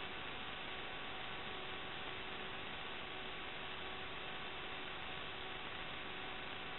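Steady static hiss with a faint, unchanging electrical hum: the noisy audio channel of an analog FPV video link as captured by a DVR recorder, with no motor or flight sound standing out.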